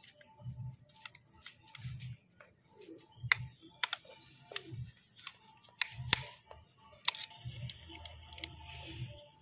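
Irregular light metal clicks and clinks from a crash-bar mounting bracket and hand tools being worked against a motorcycle engine, with dull knocks about every second and a half; one sharp click a little over three seconds in is the loudest.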